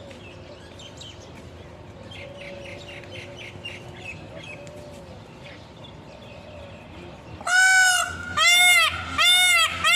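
A bird's faint chirps, then from about seven and a half seconds in a loud run of honking calls, about one and a half a second, each rising and falling in pitch.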